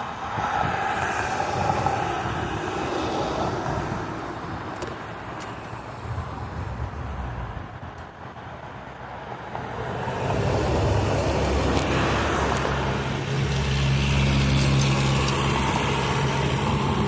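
A motor vehicle running, with a steady low hum that gets louder from about ten seconds in.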